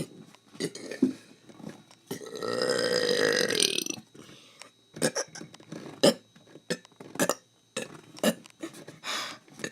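A person burping: one long, drawn-out burp of about two seconds, starting about two seconds in, with short sharp clicks scattered before and after it.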